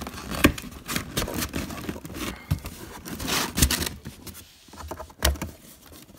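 Cardboard packaging being pulled and worked loose by hand: irregular scraping, rustling and tearing of cardboard, with a few dull knocks.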